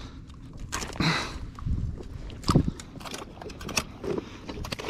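Irregular clicks and knocks as a fish is handled and clipped onto a metal stringer aboard a kayak, with the loudest knock about two and a half seconds in, over a low steady rumble.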